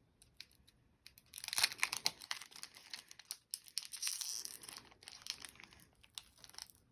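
Foil wrapper of a Pokémon booster pack being crinkled and torn open by hand. It starts about a second in, comes in two louder spells of crackling, then thins out near the end as the pack gives way.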